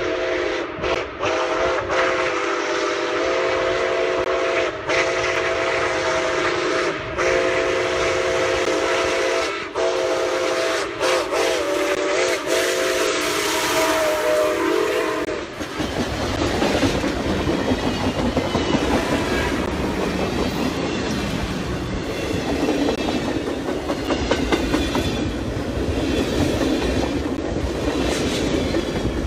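Nickel Plate Road 765, a 2-8-4 Berkshire steam locomotive, sounds its chime whistle as it approaches: several notes at once in a long series of blasts with short breaks, the pitch sagging now and then as the whistle is feathered. About fifteen seconds in the whistle stops, and the locomotive and its train pass close by with a loud rumble and steady clickety-clack of wheels over the rail joints.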